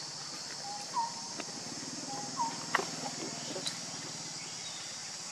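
A bird calling a short hooked note twice, about a second and a half apart, over a steady high drone of insects, with a few sharp clicks.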